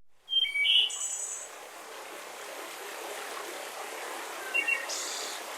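Steady wind rushing across an open ridge, with a few short high bird chirps in the first second and again near the end.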